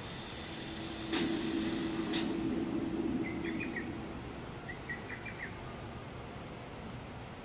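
Steady outdoor background noise with two sharp clicks and a low hum lasting a few seconds, followed by two short runs of bird chirps.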